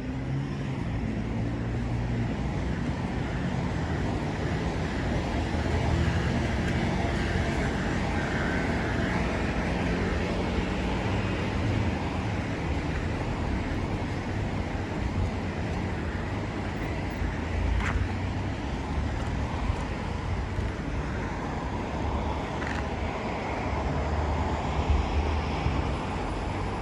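Road traffic on wet asphalt: cars passing with a steady hiss of tyres over a low engine hum. There is one sharp click about eighteen seconds in.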